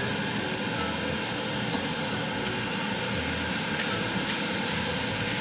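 Noodles and chicken cooking in a hot pan, a steady sizzle with a few faint ticks.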